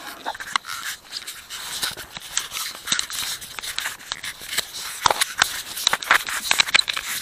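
Irregular rustling, scraping and crackling of someone walking in the dark, with footsteps and clothing brushing against things.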